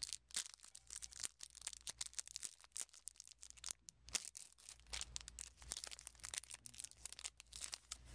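Foil trading-card booster pack wrapper crinkling and tearing in the hands, with rapid irregular crackles as the cards are pulled out and handled.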